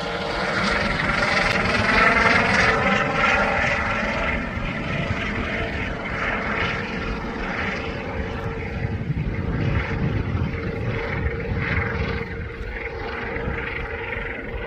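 Helicopter flying overhead: steady rotor and engine noise with a steady whine, loudest about two seconds in and then easing a little.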